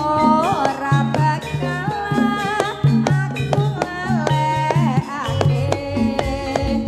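Jaranan dance music: hand drums beating a quick, steady rhythm under a wavering, ornamented melody, with sharp metallic strikes over the top.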